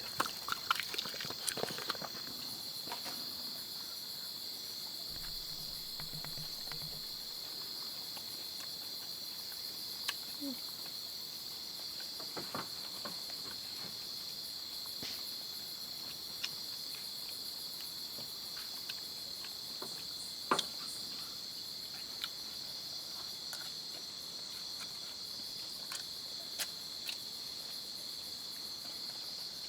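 Steady, high-pitched insect chorus of a forest, with scattered sharp clicks and snaps over it, the loudest about two-thirds of the way through.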